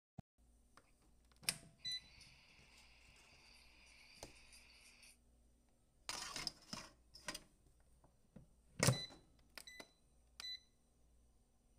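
A few short electronic beeps from a digital air fryer's control panel as its buttons are pressed to set the temperature, coming near the end after a loud knock and some clatter of handling.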